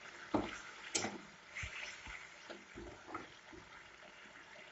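A spatula stirring small potatoes and peas in thin curry liquid in a kadai: a series of light knocks and scrapes against the pan, the sharpest about a second in, over the faint steady noise of the simmering liquid.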